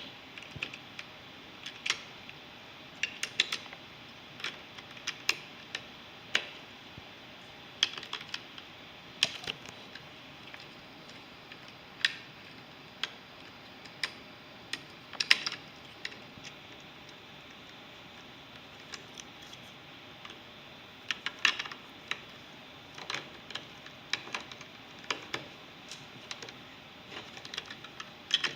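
Plastic Lego bricks clicking and clattering as they are handled and pressed together: scattered sharp clicks, some in quick pairs, with a lull of a few seconds past the middle.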